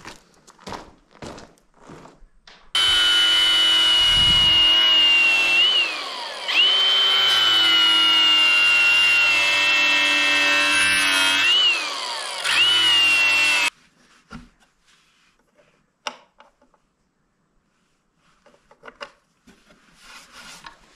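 Angle grinder running against the metal bottom plate of a washing-machine drum: a loud, steady high whine for about eleven seconds that dips briefly in pitch twice. Scattered knocks and handling sounds come before and after it.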